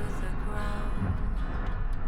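A song playing over the steady low rumble of a car on the move.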